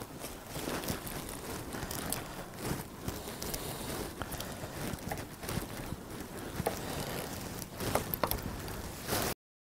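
Wind buffeting the microphone, a rushing noise with uneven low rumble and scattered crackles and clicks, cutting off suddenly near the end.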